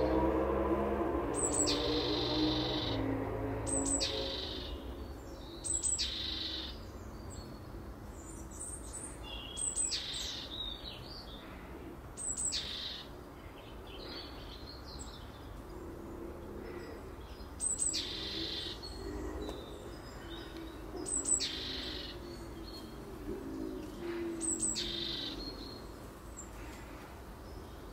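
A songbird sings short, high phrases, one every two to four seconds. A low droning tone fades away over the first few seconds.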